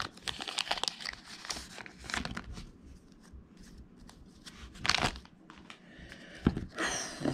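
Foil booster-pack wrapper of Pokémon trading cards being crinkled and torn open. A dense run of crackling fills the first couple of seconds, then it goes quieter, with one sharp crinkle about five seconds in and more rustling near the end.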